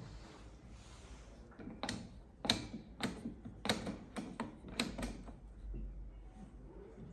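A series of about eight to ten sharp clicks and knocks, irregularly spaced, starting about two seconds in and stopping a little after five seconds.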